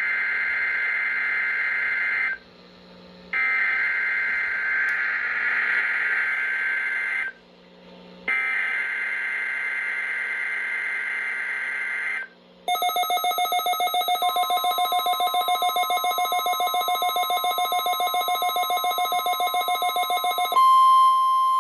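NOAA Weather Radio test signal. First come three bursts of screechy SAME digital header data tones, each about four seconds long with a one-second gap between them. These are followed by a rapidly pulsing electronic alarm with a steady high tone rising up through it, and near the end the steady 1050 Hz warning alarm tone sounds on its own.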